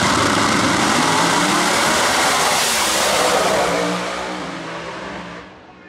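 Two Pro Mod door-slammer drag cars launching side by side at full throttle and running down the strip, their engines very loud for about four seconds, then fading as the cars pull away.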